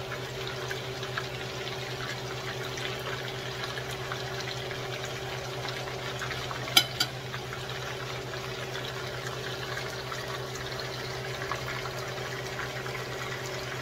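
Fish steaks sizzling steadily in hot oil in a frying pan. Two sharp cracks come about seven seconds in, and a steady low hum runs underneath.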